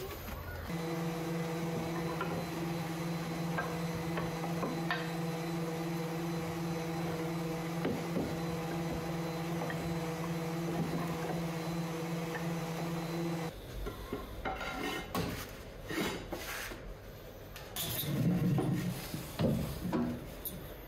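Sanding a wooden tool handle: a steady motor hum with a rubbing, rasping sound over it that starts and stops abruptly, lasting about thirteen seconds. After it, scattered light knocks and handling noises.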